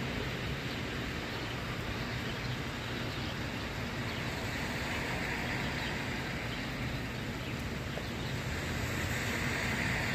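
Steady hiss of rain and car tyres on a wet street, with a low rumble beneath. The hiss swells around the middle and again near the end as cars pass.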